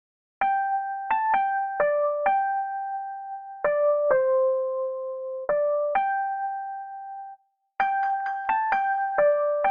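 A piano-toned keyboard plays a simple high melody one note at a time, each note struck and then fading. After about seven seconds the phrase stops briefly and then starts again.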